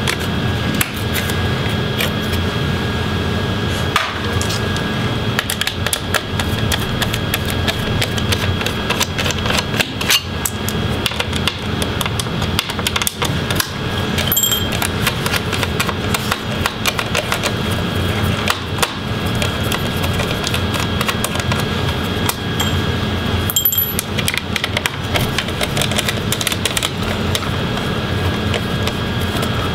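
Small Phillips screwdriver and hands working screws and parts out of a laptop's underside: rapid small clicks and scrapes throughout, over a steady hum with a faint high whine.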